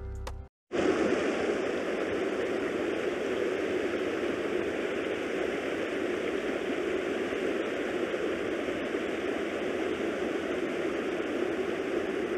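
Shallow, rocky river running over rapids: a steady rush of water that cuts in about a second in.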